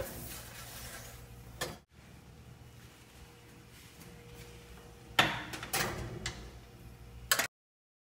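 Aluminium baking trays clattering and scraping against an oven's wire rack as they are slid in: a few short knocks, the busiest cluster about five to seven seconds in, over a faint steady hum.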